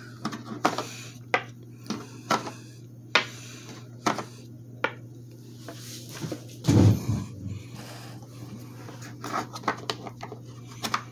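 Small steel bolts and nuts clicking and clinking as they are picked out of a plastic tool case and set down on a wooden table, a dozen or so separate sharp clicks. A short low hum of a voice about seven seconds in.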